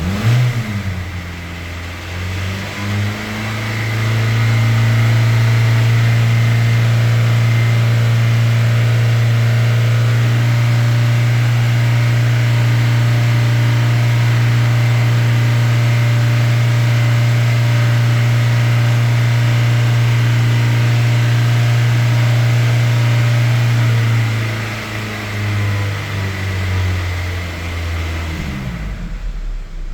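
Hyundai Sonata engine held at high revs, above 3000 RPM: the revs climb in the first few seconds, hold steady for about twenty seconds, then fall back toward idle near the end. The engine is being run fast for minutes on end to try to cure a tick-tick noise it makes at idle.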